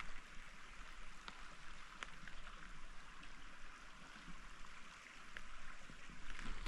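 Shallow creek water running and trickling as a steady soft wash, with a few faint ticks now and then.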